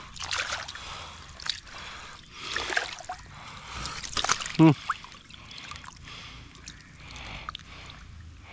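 Water splashing and trickling in irregular sloshes, with a short vocal grunt about halfway through.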